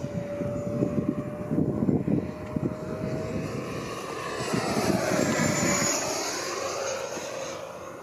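The 80 mm electric ducted fan of a Freewing F9F-8 Cougar model jet whines as the jet flies past. It is loudest about five to six seconds in, and its pitch drops as it moves away. Wind buffets the microphone in the first half.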